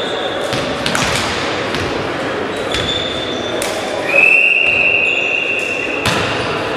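A volleyball thudding on a sports-hall floor, with a few short sneaker squeaks, echoing in the hall. About four seconds in comes a steady whistle blast lasting about two seconds, the referee's whistle that signals the serve.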